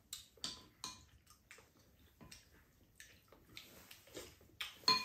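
Cutlery clinking against ceramic bowls and a pan during a meal: a string of irregular light clicks, some ringing briefly, with the loudest clink near the end. Mixed with wet eating and slurping sounds.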